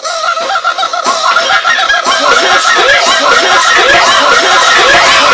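Cartoon white mouse's high-pitched snickering laugh, copied over itself again and again so the overlapping laughs pile up into a dense, louder chorus over the first couple of seconds.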